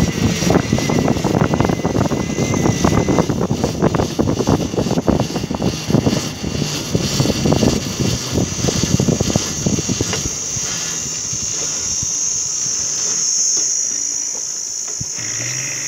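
Wind buffeting the phone microphone while riding along on an electric bike, a loud irregular rumble that eases off about ten seconds in. A steady high-pitched buzz comes up in the last few seconds.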